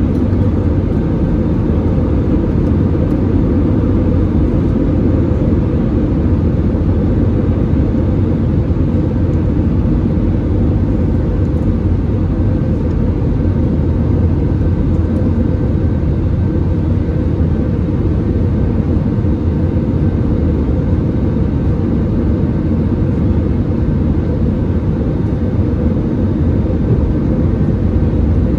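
Steady low drone inside the cabin of an Airbus A320-200 in flight: engine and airflow noise heard from a window seat over the wing, with a faint steady whine above it.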